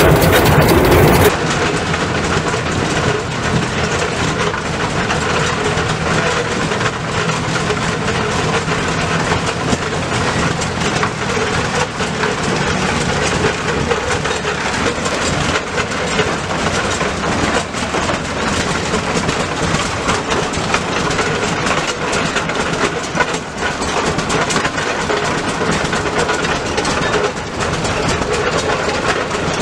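Vintage farm machinery running steadily, a low engine note under a fast, even mechanical rattle. A louder sound cuts off suddenly about a second in, where it takes over.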